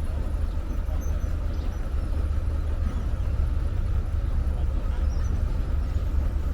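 Heavy construction machinery's diesel engine running steadily, a low rumble.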